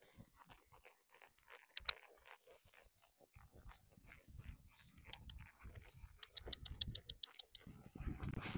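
A pony's hooves crunching on the arena surface at a trot, with a sharp click about two seconds in and a quick run of sharp clicks around six to seven seconds in.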